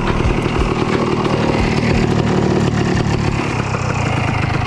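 Two-stroke KTM enduro bike's engine idling steadily while the bike lies on its side.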